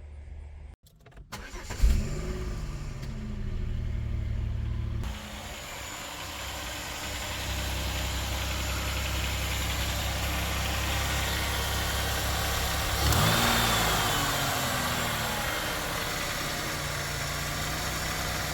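Pontiac Grand Am's 3400 V6 (3.4 L LA1) cranking and catching about two seconds in, then idling steadily, with a short throttle blip about thirteen seconds in, running with a freshly ported intake plenum.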